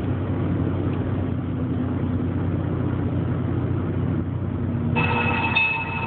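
Honda Prelude's engine and tyre noise heard from inside the cabin while driving, a steady low drone. About five seconds in, a steady high multi-tone sound joins over it.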